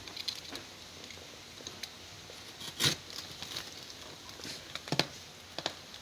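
A cardboard shipping box being opened and handled: scattered rustles, taps and crinkles, with two louder knocks about three and five seconds in.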